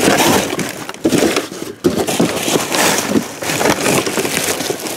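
Plastic wrapping, bubble wrap and cardboard crinkling and rustling as a hand rummages through a box of packaged items and books, in a few loud bouts.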